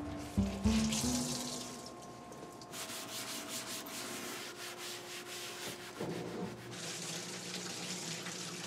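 A few held notes die away at the start. Then comes a steady rubbing noise, and from about seven seconds in a steady hiss of running water.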